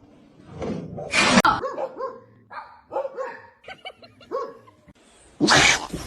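A dog barking in a run of short barks and yips, with a loud burst about a second in and another near the end.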